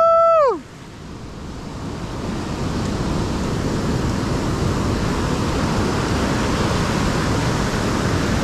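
Ocean surf breaking and washing up a sandy beach, a steady rush that swells over the first few seconds. At the very start a brief loud, high shout rises and falls, then cuts off.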